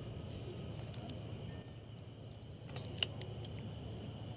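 Night-time insects chirring steadily over a low, even hum, with two sharp clicks close together about three seconds in.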